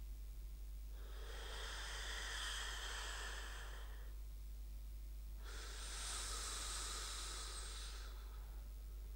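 Two slow, drawn-out breaths, each about three seconds long, like a person breathing in their sleep: a sleep-breathing sound effect.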